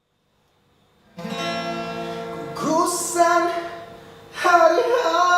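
Music starts about a second in: a strummed acoustic guitar chord, then a voice singing two phrases over it.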